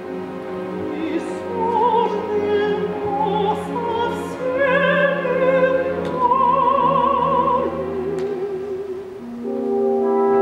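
Operatic soprano singing a slow phrase with wide vibrato over orchestral accompaniment. The voice stops about eight seconds in, and the orchestra carries on with held chords near the end.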